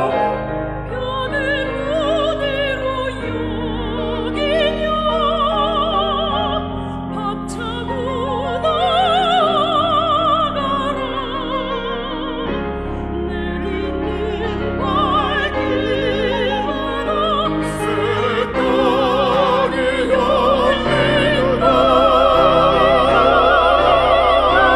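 Mixed choir with classically trained solo voices singing with wide vibrato, accompanied by piano and organ; the music swells louder near the end.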